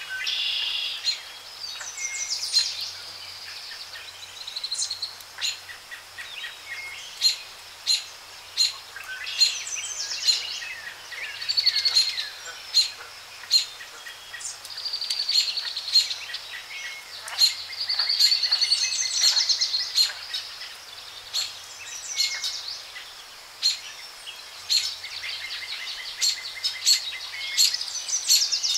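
Birds calling in the background: many short, sharp chirps and some longer trilling calls repeating throughout, over a faint steady outdoor hiss.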